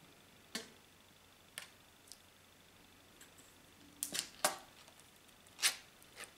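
Ring-pull lid of a canned ham being opened by hand: a few sharp metallic clicks and snaps as the tab is worked, with the loudest, slightly longer crack near the end as the lid tears back along its edge.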